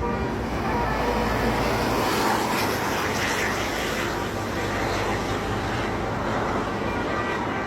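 A bus passing close by, its engine and road noise swelling about two to three seconds in. Short notes of its multi-tone telolet horn sound faintly near the start and again near the end.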